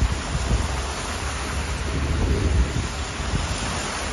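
Cars driving through floodwater on a rain-soaked street, their tyres splashing through the water as rain falls. Gusts of wind rumble unevenly on the microphone.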